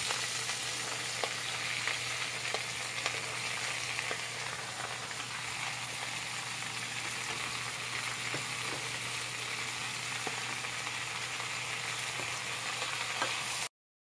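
Komatsuna greens frying in hot rice oil in a stainless saucepan: a steady sizzling hiss with a few light ticks as the leaves are added and moved. The sound cuts off abruptly near the end.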